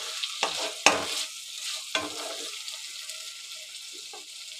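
Potato and brinjal sabji, cooked through, sizzling in oil in a kadhai while a spatula stirs it. The spatula scrapes and knocks against the pan three times in the first two seconds, and then only the sizzle goes on, slowly fading.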